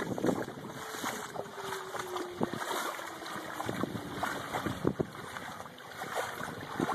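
Floodwater running across a road, with wind buffeting the microphone and scattered sharp splashes and patters.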